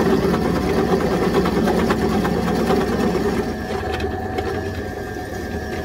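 Pillar drill boring a 12 mm hole through an aluminium motorcycle yoke: the motor runs steadily under the grating sound of the bit cutting metal. About three and a half seconds in the cutting eases and the drill runs on more quietly.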